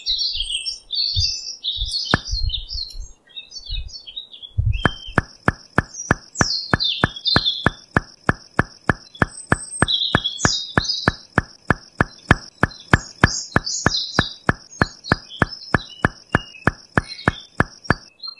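Small birds chirping and tweeting. From about five seconds in, a steady ticking of about three ticks a second runs under them and stops just before the end.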